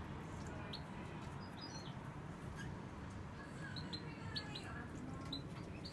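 European goldfinch twittering: scattered short, high chirps with a few quick runs of softer, lower notes.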